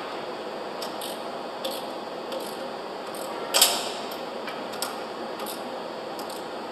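Hand ratchet clicking in short, irregular spells as the bolts holding a concrete pump's piston cup are run down, with a louder metallic clank about three and a half seconds in, over a steady hiss.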